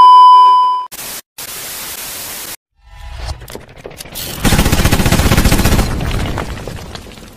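Video intro sound effects: a loud steady test-pattern beep lasting just under a second, then a stretch of TV static hiss. A rising rumble builds into a loud boom with rapid crackling that slowly fades.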